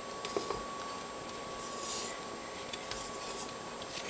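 Faint scraping of a plastic bowl scraper against the inside of a metal mixing bowl as soft bread dough is turned out, with a few light ticks, over a steady faint hum.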